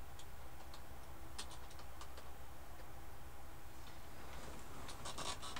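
Computer keyboard being typed on: scattered light key clicks, with a quicker run of clicks near the end, over a steady low hum.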